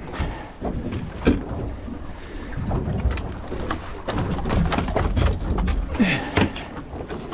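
Irregular knocks, clacks and rustles of a landing net, a fishing rod and a freshly caught jewfish being handled on a boat's carpeted deck, over a low rumble. One sharper knock comes about a second in.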